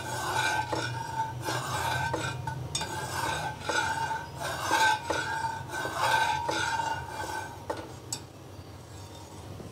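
Steel ladle stirring milk in a stainless steel pot, scraping and clinking against the metal so that the pot rings with each stroke. The stirring stops a little before the end.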